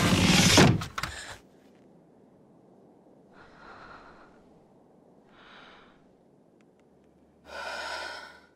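A loud rushing noise swells and cuts off suddenly about a second in. Then a woman's breathing follows: two soft breaths and a louder gasp near the end.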